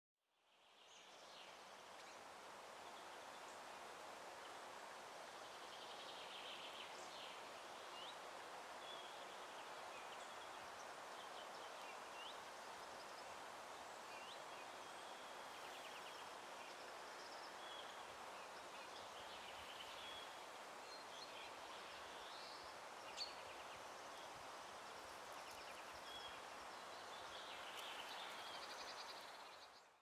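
Faint outdoor ambience: a steady hiss with scattered bird calls, short chirps and quick rising whistles, plus a few rapid stuttering calls. One sharp click stands out once, late on.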